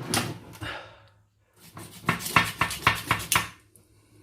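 Kitchen clatter: a quick run of sharp knocks and clicks from dishes and utensils being handled, after a short pause about a second in.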